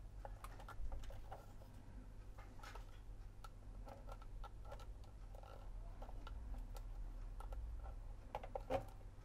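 Scattered faint clicks and light taps of fingers and a small tool working a new platter drive belt around the drum of a Sharp VZ-3000 turntable's metal chassis, with one sharper knock near the end. A steady low hum runs underneath.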